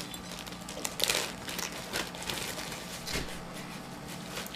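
Plastic packaging crinkling and rustling in irregular bursts as the contents of a safer-sex kit, including a wrapped rubber glove, are handled.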